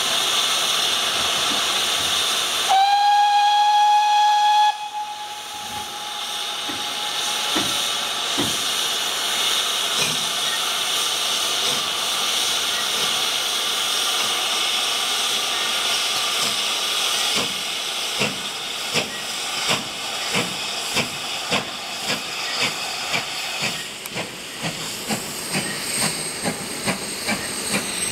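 Great Western steam locomotive departing: a steady hiss of steam, one long whistle about three seconds in, then exhaust chuffs that start slow and quicken to about two a second as it pulls away.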